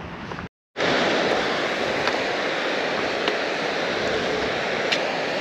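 Steady rushing of mountain water, cutting in loud after a brief moment of silence under a second in.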